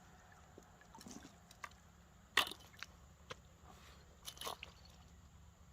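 A few faint, scattered clicks and knocks over low background noise, the loudest about two and a half seconds in, with a short cluster near the end.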